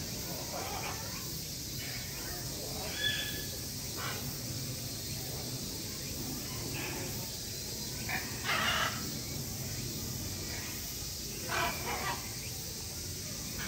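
Great green macaw giving a few short, rough calls. The loudest and longest comes about two-thirds of the way through, and two quick ones follow near the end.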